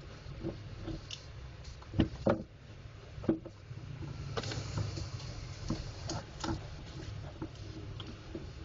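Scattered small clicks and knocks of a plastic laser-printer drum unit being handled and worked on with a screwdriver, the loudest a few sharp knocks about two and three seconds in, with a short rustling scrape about four and a half seconds in, over a steady low hum.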